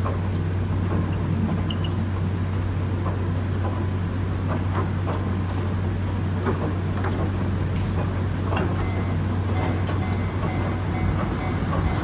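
Narrow-gauge industrial train of empty flat wagons rolling over a road level crossing: a steady low rumble with irregular sharp metallic clicks and knocks from the wheels on the rails.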